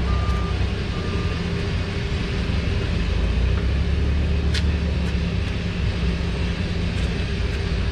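Steady low engine rumble of a running vehicle, with a backup alarm beeping during roughly the first second and a single sharp click about four and a half seconds in.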